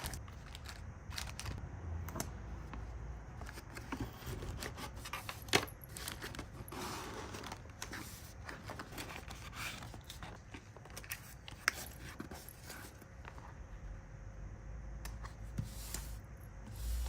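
Order-packing sounds: small hard plastic items clicking and clinking against each other and the table, with light rustling of packaging, in scattered irregular taps.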